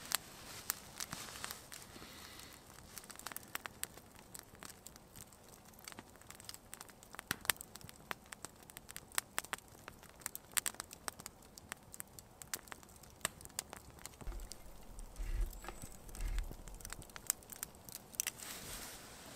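Campfire crackling, with irregular sharp pops and snaps.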